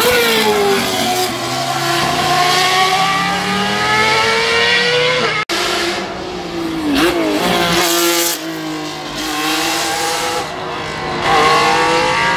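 High-revving racing car engines: the first one's pitch drops and then climbs slowly as it pulls. An abrupt cut about five seconds in brings in another engine, with a quick blip of revs and rising revs near the end.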